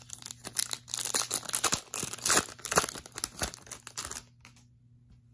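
A trading-card pack's foil wrapper being torn open and crinkled, a dense crackling that lasts about four seconds and then stops.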